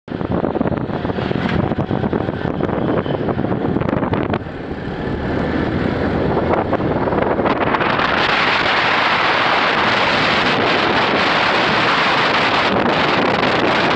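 Wind buffeting the microphone over the road noise of a moving motorcycle. It turns louder and hissier about halfway through.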